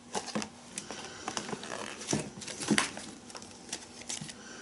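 Paper and packaging being handled: a folded instruction sheet rustling, then a battery box and small wrapped parts picked up, a string of short crinkles and light taps.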